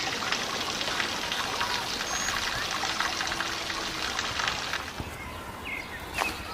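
Water pouring in a steady stream, which stops about five seconds in.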